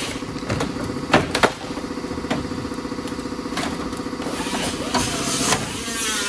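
Sheet metal of a car's rear quarter panel being torn and pried off the body: sharp metal knocks and bangs, then a wavering screech of bending steel near the end. A steady mechanical hum runs underneath throughout.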